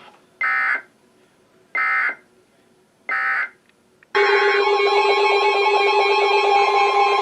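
Emergency Alert System end-of-message data bursts: three short, identical buzzy electronic screeches about a second apart, signalling the end of the warning broadcast. About four seconds in, a loud, steady sound made of several held tones starts.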